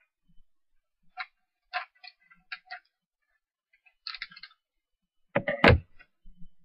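Scissors cutting a plastic-backed sheet of iron-on rhinestones: a handful of short, crisp snips and crinkles, then two louder knocks near the end.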